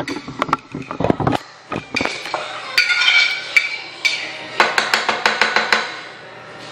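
A kitchen knife clicking and tapping against a plate in quick runs as a green bell pepper is sliced on it.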